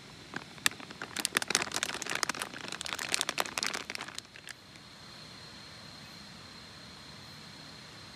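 Plastic bag crinkling and rustling as frozen shrimp balls are shaken out of it into a plastic bowl. After about four and a half seconds this stops and a steady hiss with a thin high whine takes over.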